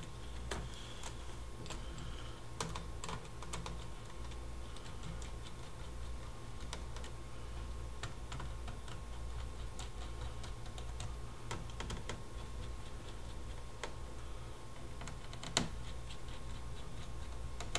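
Scattered light plastic clicks and taps from handling a laptop's memory compartment cover as it is put back on, with one sharper knock near the end, over a steady low hum.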